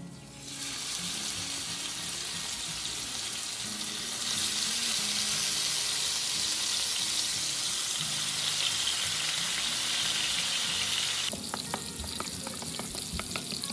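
Chopped onions sizzling as they fry in hot oil with cashews and spices in a pan. The sizzle starts about half a second in and grows louder about four seconds in. Near the end it drops and a run of quick clicks and taps comes through.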